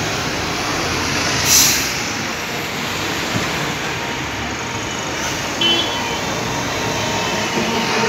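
Diesel bus engines running close by, with a short, sharp air-brake hiss about a second and a half in. A second, briefer hiss comes at around five and a half seconds.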